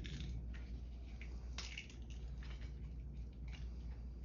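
Silicone rubber casting mold being pulled open and handled: irregular soft squishing and peeling rustles over a steady low hum.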